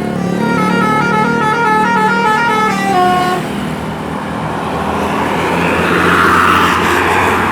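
Indonesian bus 'telolet' multi-tone horn (Basuri type) playing a quick stepped tune of several notes for about three and a half seconds. It is followed by a loud rushing noise that swells near the end, over a steady low engine hum.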